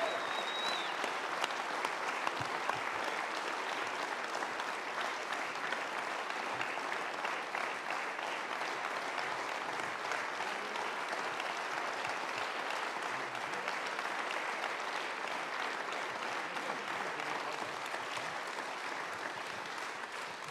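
A large audience applauding steadily, many hands clapping together in a sustained ovation that eases slightly near the end.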